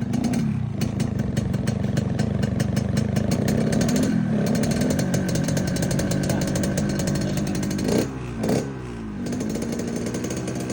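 Yamaha RX-King two-stroke single-cylinder engine fitted with a 'ngorok setan' air filter, whose intake gives a snoring growl. It is held at raised revs for about eight seconds, then gets two quick throttle blips and drops back to lower revs.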